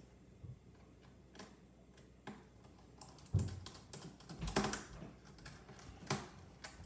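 Small Phillips screwdriver and tiny screws clicking and tapping against a Chromebook's plastic bottom case as the screws are driven back in. Scattered light clicks at first, then busier and louder clicking from about halfway, with a few sharper knocks.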